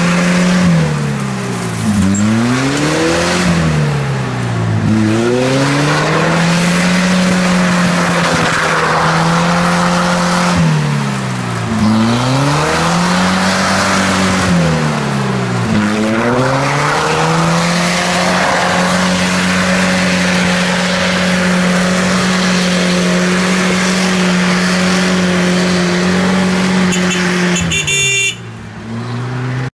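UAZ-469 jeep's engine revving hard in deep mud, the revs dropping and climbing back again every second or two, then held high and steady for about ten seconds while the wheels churn and throw mud. The sound drops away briefly near the end.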